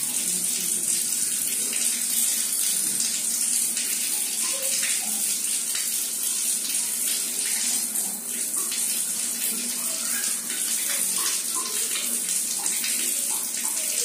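A wall tap running in a thin stream onto a tiled floor, a steady splashing hiss of water falling over a pigeon bathing beneath it.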